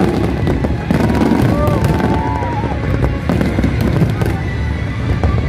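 Fireworks display going off: a dense run of pops, bangs and crackling over a low rumble, with a few short whistling tones, crowd voices and music mixed in.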